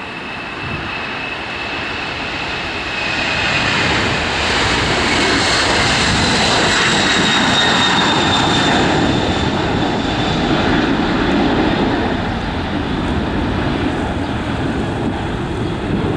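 Twin turbofan engines of a Boeing 767-300 at takeoff thrust as the airliner climbs out: a steady jet roar that swells over the first few seconds. A high whine runs through it and slowly falls in pitch as the aircraft passes.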